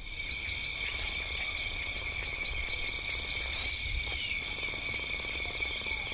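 Night insect chorus: crickets trilling steadily at several high pitches, with short repeated chirps layered over them.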